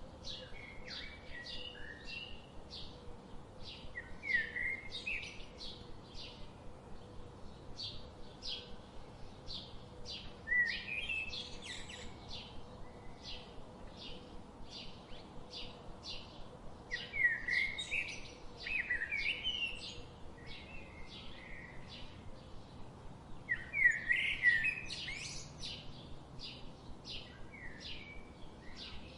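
Songbirds in a forest: one bird repeats a short high chirp about twice a second throughout, while others break in every few seconds with louder warbled song phrases.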